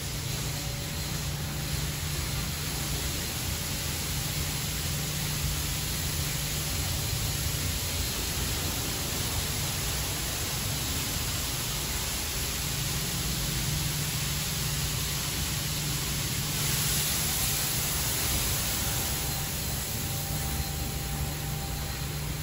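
Ryko Radius HT touchless car wash spraying a minivan: a steady hiss of pressurised spray from the moving wash arm striking the car, over the low hum of the wash's pumps and motors, briefly louder a little past the middle.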